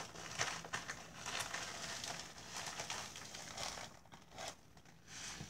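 Plastic mailer bag crinkling and rustling in irregular crackles as it is handled and pressed by hand.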